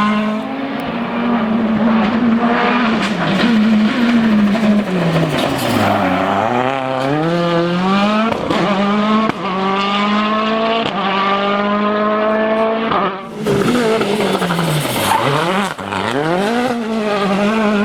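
Citroën DS3 WRC rally car's turbocharged four-cylinder engine at high revs, its pitch held near the limiter and dropping briefly on each upshift. Twice the revs fall away deeply under braking and climb again, with sharp cracks and some tyre noise along the way.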